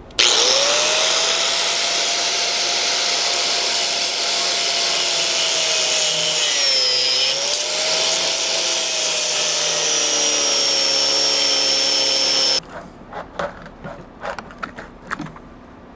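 Handheld power tool motor running steadily for about twelve seconds, its pitch dipping briefly about seven seconds in as it bogs under load, then cutting off suddenly. It is working into the plastic half-width disconnect, whose screws could not be removed with a screwdriver. Light handling clicks follow.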